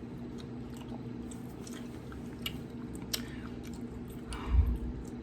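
A few soft, scattered clicks over a steady low hum, with a short low thump about four and a half seconds in.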